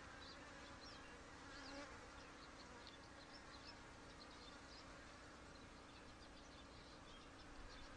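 Honey bees buzzing in a faint, steady hum around an opened hive during an inspection.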